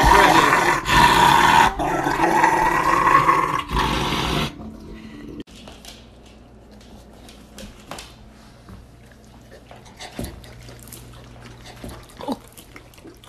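A Rottweiler growls and whines loudly in protest while its nails are clipped. After about four and a half seconds it cuts off suddenly, leaving only faint small clicks and handling noises.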